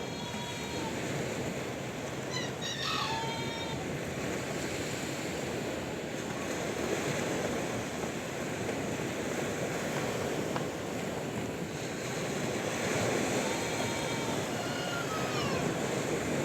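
Sea waves washing in a steady rush of surf. Short pitched animal calls sound over it near the start, in a quick series about three seconds in, and again near the end.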